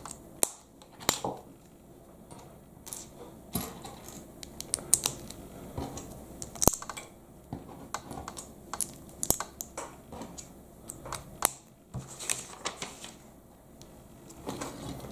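Plastic LEGO bricks being handled and pressed together, with pieces set down on a wooden table: irregular sharp clicks and light clatter.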